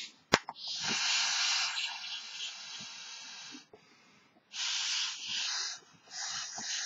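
A person blowing breaths into a large balloon: three hissing rushes of air, the first about three seconds long and fading, then two shorter ones, with a sharp click just after the start.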